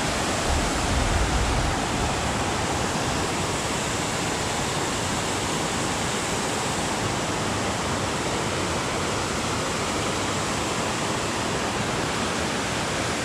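Steady rush of water pouring through a concrete spillway: an even, unchanging hiss. A brief low rumble about a second in.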